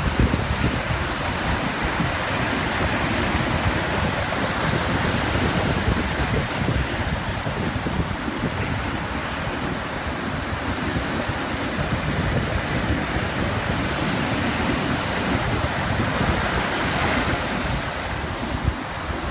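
Small ocean waves lapping and washing on a beach in a steady hiss of surf, with wind buffeting the microphone in low rumbles.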